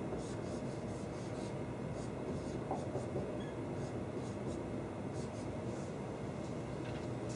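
Dry-erase marker writing on a whiteboard: a run of short, irregular scratchy strokes as structures are drawn, over a steady low hum.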